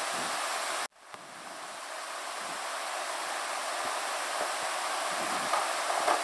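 Steady hiss of room tone and microphone noise. It cuts out abruptly about a second in, then swells back up gradually. A few faint soft knocks follow near the end.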